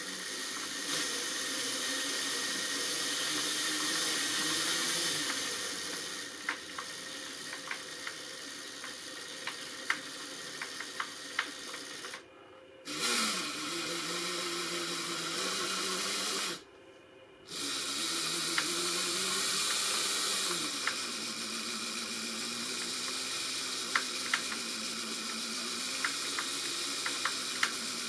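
Electric motors and gearbox of an RC crawler driving its wheels free-spinning at low throttle. The whine rises and falls with the throttle and stops twice. Through it comes a repeated clack, from a damaged inner gear in the gearbox.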